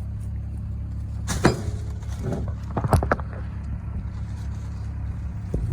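An engine running steadily at low speed, with a sharp knock about a second and a half in and a short clatter of knocks around three seconds in.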